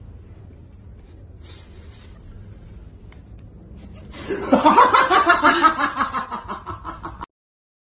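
A person laughing hard in quick, rapid bursts, starting about four seconds in and lasting about three seconds before it cuts off suddenly. Before the laugh there is only faint room noise with a few small clicks.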